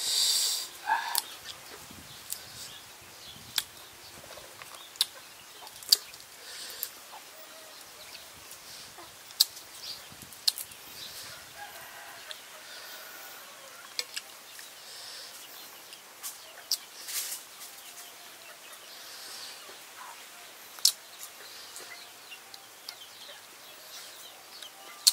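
Chickens clucking in the background, with a short call right at the start, mixed with scattered sharp crisp snaps and rustles of fresh cabbage leaves and herb sprigs being torn and handled close up.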